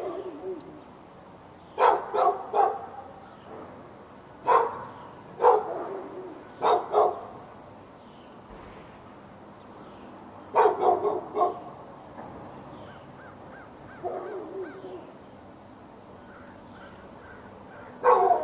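A dog barking over and over, in short runs of one to several loud barks a few seconds apart.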